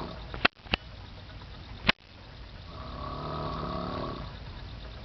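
A person snoring loudly: the tail of one snore at the very start, a few sharp clicks in the first two seconds, then one long snore lasting nearly two seconds, starting about two and a half seconds in.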